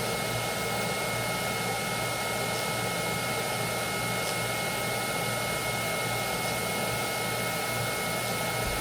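Steady motor-driven hiss with two constant high-pitched whines, unchanging throughout.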